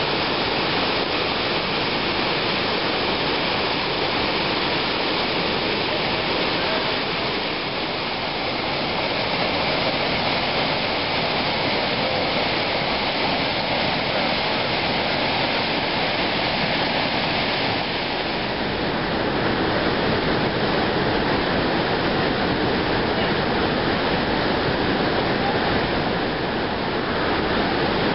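Waterfall and river rapids rushing steadily over rock ledges, a loud even roar of water that grows a little brighter about two-thirds of the way through.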